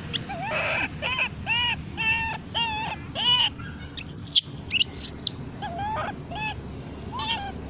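Baby long-tailed macaque crying for its mother: a run of short, arching whimpering cries about two a second, broken by two shriller squeals about four seconds in, then more whimpers.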